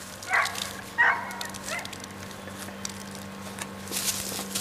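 A man retching over a gallon jug after chugging chocolate milk: two short strained heaves about a second apart near the start and a weaker one after, then a spatter of vomit into the jug near the end.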